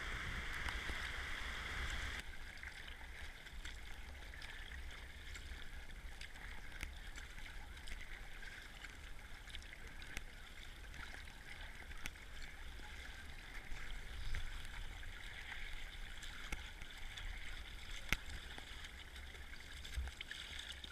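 Rushing whitewater of a river rapid for about two seconds, then, after a sudden drop, quieter water lapping and splashing around a kayak paddling on calm water, with a low rumble and a few sharp clicks.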